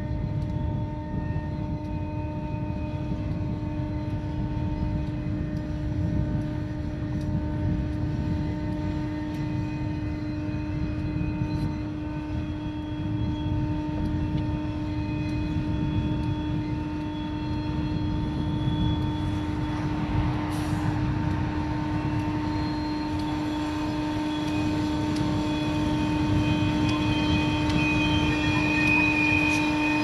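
Diesel locomotive running under load as it pushes a snowplow through drifts: a steady engine drone with a constant hum over a low rumble, getting louder over the last several seconds as it draws near.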